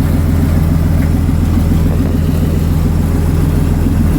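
Boat engine idling: a steady, low mechanical hum that does not change.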